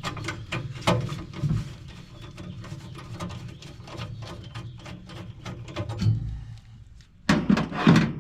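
Irregular small clicks and knocks of hand tools and metal parts being handled while a furnace flame sensor is swapped out, with a brief lull and then a louder clatter near the end.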